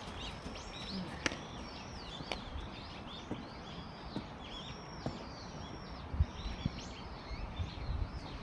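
Small birds chirping in short, arching notes again and again, over a low rumble that swells a few times near the end, with a few faint knocks.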